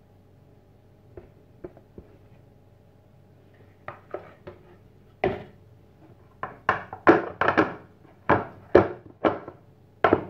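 A fluted metal cake tin full of batter knocked repeatedly against a stone countertop, a run of sharp knocks starting about four seconds in at roughly two a second and getting louder, to settle the batter. A few faint clicks of a spatula against the bowl come first.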